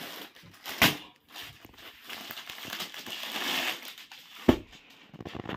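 Crinkling and rustling of a packed suit and carry bags being handled on a counter, with two sharp knocks, one about a second in and one near the end.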